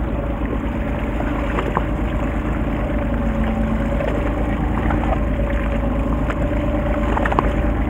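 Fishing boat's engine running steadily with a constant low rumble and hum, with water and wind noise over it and a few faint clicks.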